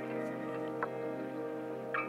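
Ambient background music: sustained chords with a light, short struck note about a second in and another near the end.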